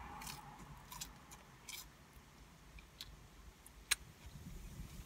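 Quiet mouth sounds of a person chewing a fried chicken sandwich and licking her fingers: a few scattered wet smacks and clicks, the loudest a sharp click about four seconds in.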